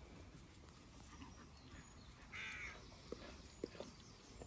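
Mostly quiet, broken a little past halfway by a single short harsh crow's caw, followed by a few soft taps.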